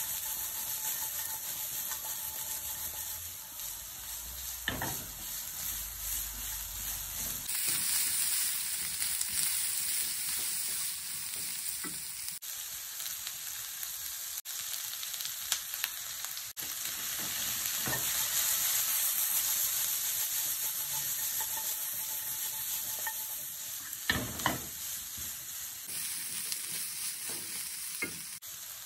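Chicken and vegetable stir-fry sizzling in a nonstick wok as it is stirred and tossed with a silicone spatula, with occasional knocks and scrapes of the spatula against the pan.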